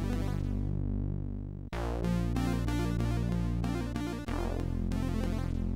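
Commodore 64 SID chiptune played on an 8580 SID chip: sustained synth bass notes that change about every two and a half seconds, with a fast stepping chord pattern above and percussive noise hits. The treble twice dies away and comes back.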